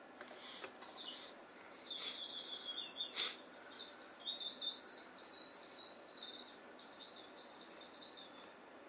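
Eurasian skylark song: a few separate high chirps, then from about three seconds in a rapid, unbroken warble. A short click sounds about three seconds in.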